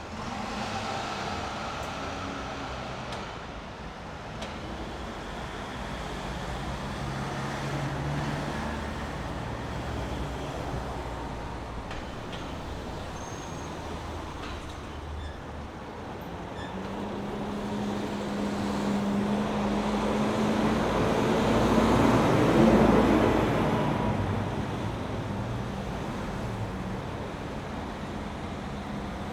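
City street traffic: steady road noise from passing cars. About two-thirds of the way through, a heavy vehicle's engine rises as it passes close, becomes loudest, then fades.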